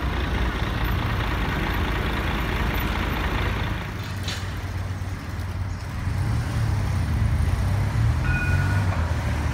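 Street noise outdoors: a steady low rumble of road traffic, with a brief high tone near the end.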